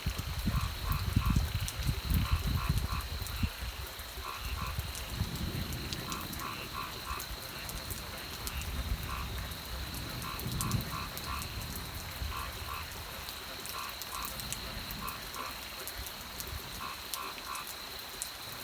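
Frogs calling in short runs of three or four quick pulses, repeated every second or two. Under them run a steady high-pitched trill, scattered light ticks like raindrops, and a low rumble that is heaviest in the first few seconds.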